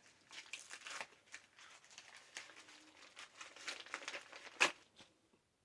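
Mail packaging being handled and opened: a run of crinkling and rustling, with a sharp crackle about four and a half seconds in.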